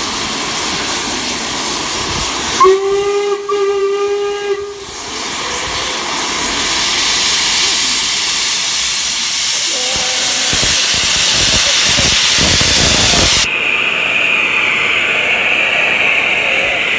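LMS Royal Scot class steam locomotive 46100 blowing off steam with a loud steady hiss from its safety valves, its whistle sounding once for about two seconds, then a fainter short whistle about ten seconds in. Near the end the hiss drops lower as the engine starts to move off.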